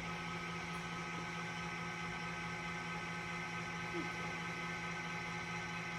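Honey extractor spinning honey frames, giving a steady, even hum.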